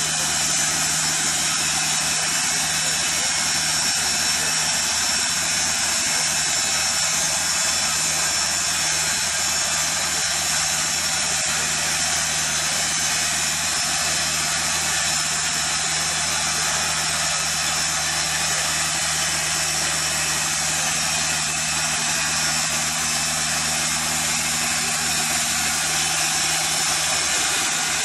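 TimberKing 2000 portable bandsaw mill sawing a cant of Elaeocarpus grandis: the engine runs steadily under load as the band blade cuts along the board, a steady engine hum under a dense high hiss of sawing.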